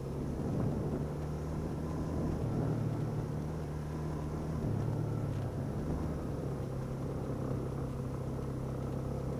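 Yamaha YBR250's single-cylinder four-stroke engine running steadily while the motorcycle rides along, its pitch shifting slightly a couple of times.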